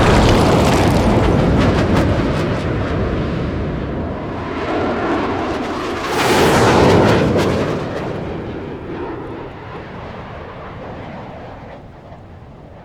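Sci-fi combat sound effect: the long rumbling tail of a heavy boom fading slowly, with a second swell of roaring noise about six seconds in, then dying away.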